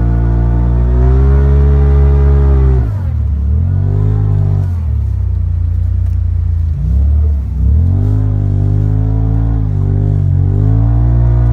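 Polaris RZR XP 4 Turbo side-by-side's engine revving as the throttle is worked. The pitch climbs, drops sharply about three seconds in, dips and rises again a couple of times, then climbs back and holds steady near the end.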